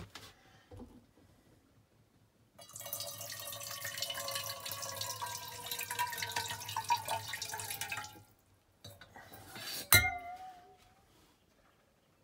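Water pouring from the metal spigot of a glass drink dispenser into an enamel camp mug for about five seconds, with a ringing tone that slides lower as it runs. A single sharp clink of hard objects near the end.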